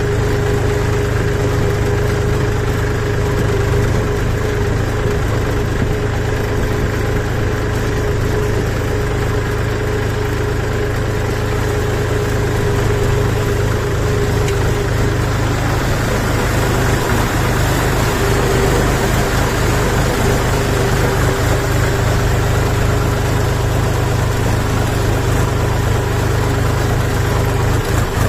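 Diesel tractor engine running steadily as the tractor drives along a farm track, heard from the driver's seat close to the engine and exhaust.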